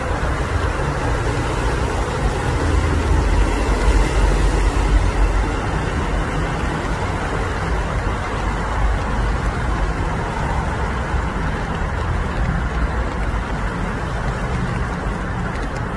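Steady low rumble under a broad hiss, swelling briefly about four seconds in.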